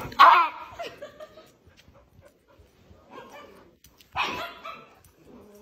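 A dog barking and yipping excitedly as it jumps on a person, with two loud outbursts, one just after the start and one about four seconds in.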